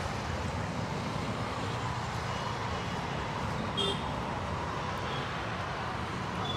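Steady street traffic noise, with one brief light metal clink of a steel utensil about four seconds in.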